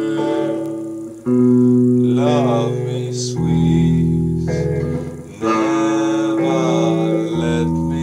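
A man singing long held notes with a wavering pitch to guitar accompaniment, the chord changing about every two seconds.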